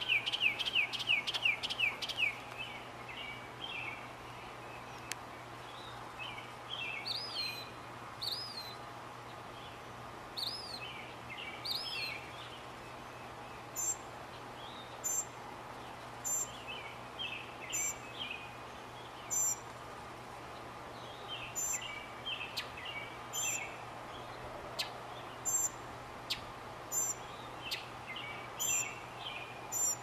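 Mockingbird singing. It opens with a quick run of repeated chirps, moves to varied phrases of rising and falling notes, and from about halfway adds a thin high note repeated roughly once a second among lower chatter. A faint steady low hum and hiss sit underneath.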